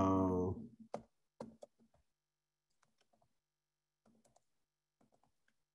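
Faint, irregular keystrokes on a computer keyboard, coming in small clusters as a short line of text is typed.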